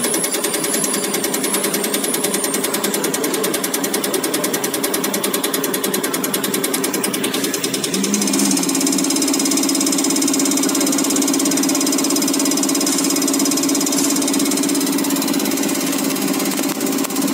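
CR738 common-rail test bench running a HEUI injector test: the bench's drive and oil pump run steadily under a fast, even clatter of the HEUI injector firing. About eight seconds in, the clatter gives way to a steadier, slightly louder hum with a high whine, as the bench moves to its next test step.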